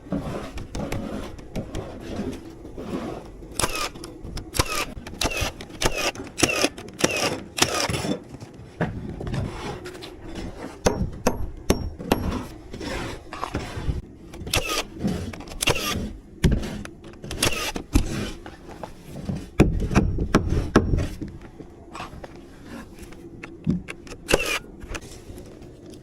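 House-framing work: an irregular run of sharp knocks and bangs, some ringing briefly, with scraping between them.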